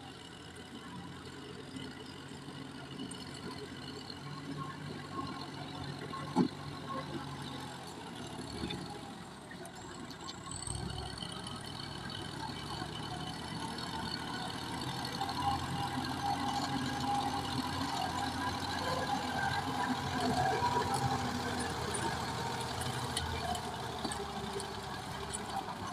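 Tractor engine running steadily, growing louder about eleven seconds in, with one sharp knock about six seconds in.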